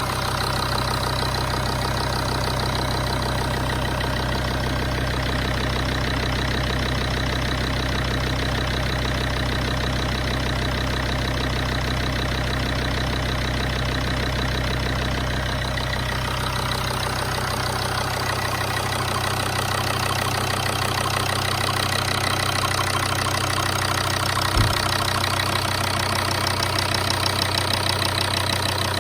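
Volvo XC90 2.4 five-cylinder diesel (185 hp) idling steadily, running harshly with a metallic knock that the owner flags as a fault. One sharp click stands out about three-quarters of the way through.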